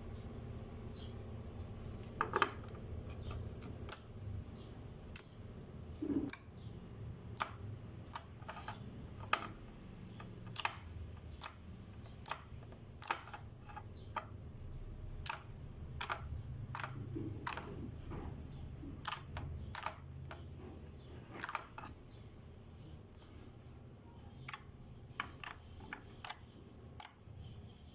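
Slime being handled, making irregular sharp clicks and pops, one or two a second, over a low steady hum.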